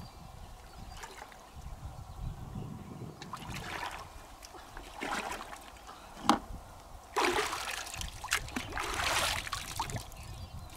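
Shallow river water splashing and sloshing as hands feel along the bottom for freshwater mussels. A sharp knock comes about six seconds in, followed by louder splashes.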